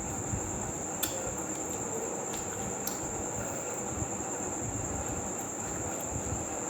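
Close-up chewing and mouth sounds of someone eating, with a few short crisp clicks, over a steady high-pitched whine.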